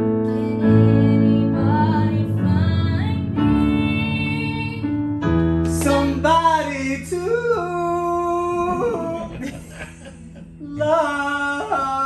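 A woman singing live over digital piano accompaniment: held piano chords underneath, with the voice clearest from about halfway through.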